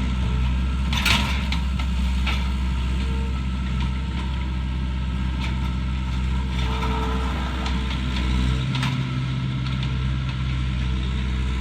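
Engine of a heavy machine running steadily as it works on pushing down a wooden building, with a few short sharp cracks of breaking wood.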